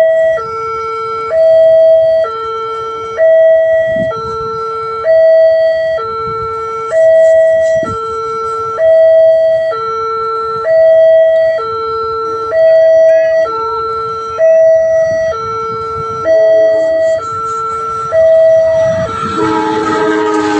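Railway level-crossing warning alarm sounding a loud electronic two-tone siren, switching between a higher and a lower tone about once a second, warning that a train is approaching. Near the end the rumble of the oncoming train rises under it.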